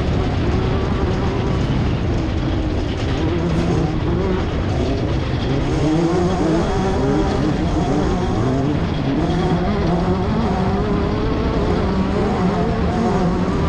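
Class 10 off-road race car's engine running hard, its pitch rising and falling continuously as it revs.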